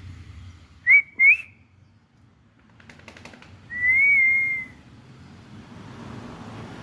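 A person whistling: two short rising whistles, then one longer, slightly wavering whistle, with a few faint clicks in between.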